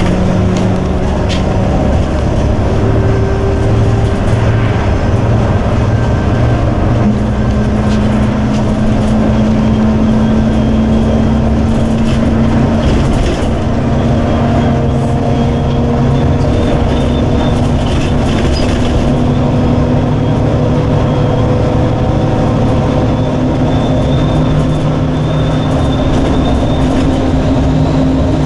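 Inside a city bus on the move: the bus's engine drone and road noise, running steadily. The engine note steps up about seven seconds in, then climbs slowly as the bus gathers speed.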